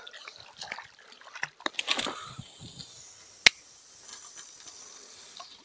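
A cast with a spinning rod and reel: a swish about two seconds in, then a faint steady hiss of line and reel, broken by one sharp click about three and a half seconds in.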